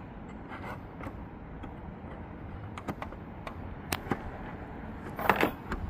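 Scattered light clicks and taps of a hand tool turning the small tension bolt behind a VW Golf GTI tail light, with a louder clatter about five seconds in.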